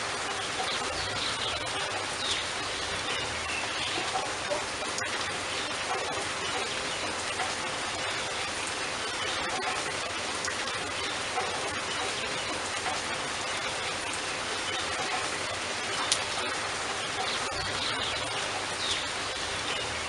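Steady rain falling on wet paving and pooled water, with the odd louder drip or splash standing out now and then.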